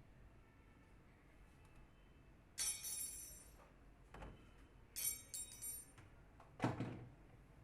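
Metal parts or tools clinking with a ringing tone, a few times, then a duller knock near the end.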